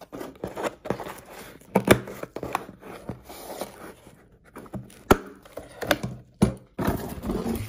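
Fingernails picking and scraping at white plastic strapping band on a cardboard box, then scissors snipping through the strap. It is a run of sharp clicks, taps and scrapes on the cardboard, the sharpest about two, five and six and a half seconds in.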